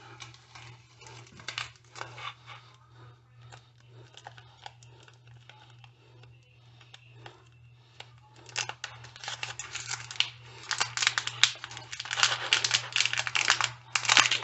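A hot dog package being handled and opened, crinkling and tearing: scattered light clicks at first, then loud, dense crinkling from about eight seconds in. A low steady hum runs underneath.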